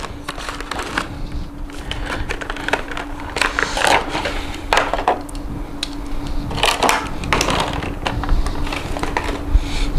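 A small cardboard box and a clear plastic display case being handled and opened, with irregular plastic crinkles, scrapes and clicks as a 1:64 diecast model is taken out. A steady low hum runs underneath.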